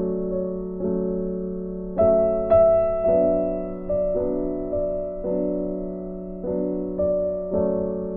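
Background music: a soft keyboard or piano melody, its notes struck about once or twice a second and dying away, over a steady low sustained tone.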